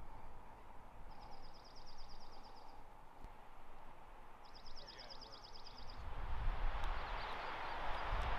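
A small songbird sings two short trills of rapid, high repeated notes, about three seconds apart. Wind rushes over the microphone and picks up in the last couple of seconds.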